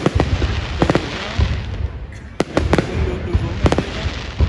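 A fireworks display, with shells bursting in quick, irregular succession: sharp bangs over a continuous low rumble.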